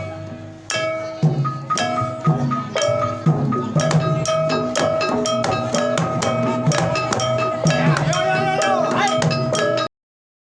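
Banyumasan-style Javanese gamelan music led by a kendang jaranan drum, its hand strikes keeping a steady pattern over ringing, bell-like metal tones. The music cuts off suddenly near the end.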